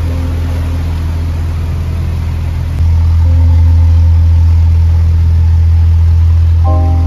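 Narrowboat's diesel engine running steadily at low speed, a deep continuous hum that gets louder about three seconds in.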